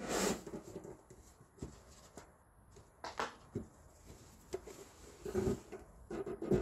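Handling a rigid cardboard shoe box: the lid scrapes and slides against the box, and a cotton dust bag rustles as it is lifted out. It comes as a few short bursts, the loudest right at the start and a cluster near the end.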